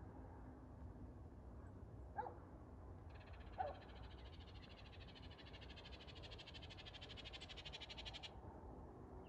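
Faint wildlife calls: two short lower calls, then a high, fast trill lasting about five seconds that stops suddenly.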